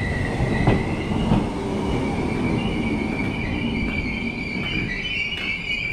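A sustained high-pitched squeal that rises slightly in pitch, over a steady low rumble, with a few clicks.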